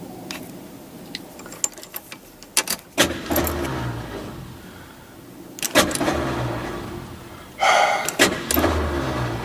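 Ford Ranchero starter cranking the engine in three short attempts, each starting with a sharp click and a pulsing rumble of the engine turning over, the last with a harsher grinding tone, without the engine catching. A few light key clicks come first. The starter is the suspected fault.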